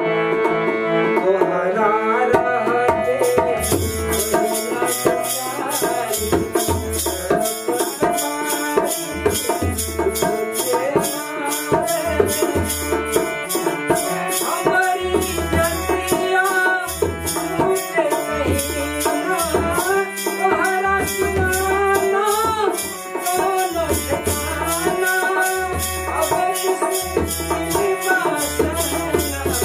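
Devotional bhajan music: a man sings over the held chords of a harmonium, with deep rhythmic strokes on a dholak and the steady jingling of a kartal, which comes in about three seconds in.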